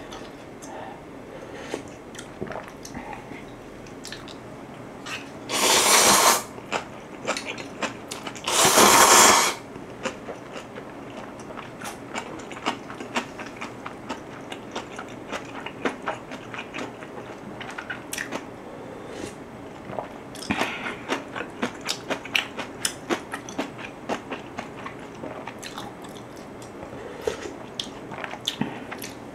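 Close-miked eating of ramen noodles and kimchi: two loud slurps, each about a second long, about six and nine seconds in. Between and after them come steady chewing and crunching, with many small wet clicks of the mouth.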